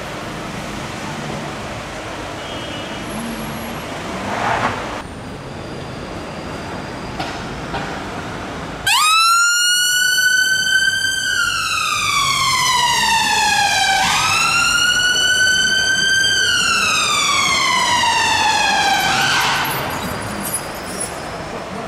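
Road traffic, then about nine seconds in an emergency vehicle's siren cuts in abruptly and sounds two slow wails, each climbing quickly, holding briefly, then falling away over about three seconds. It stops about two seconds before the end, leaving the traffic.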